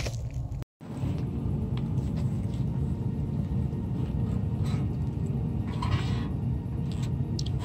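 Steady low rumble with a few faint rustles, briefly cut to silence less than a second in.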